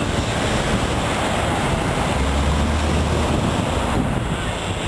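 Steady outdoor rush of wind on the microphone mixed with street traffic noise, with a deeper low rumble for about a second, a little over two seconds in.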